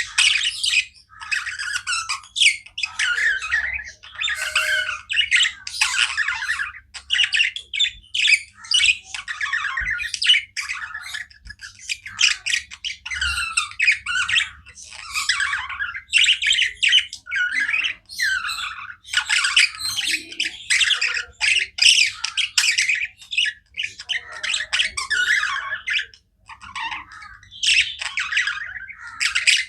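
Pet budgerigars chirping non-stop: a dense, unbroken run of short, quick, high calls with only brief pauses.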